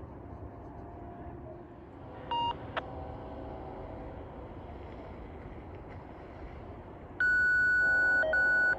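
Electronic beep tones over a railway radio scanner: a short beep about two seconds in, then a louder, longer steady beep near the end, broken once briefly, over a steady low hiss.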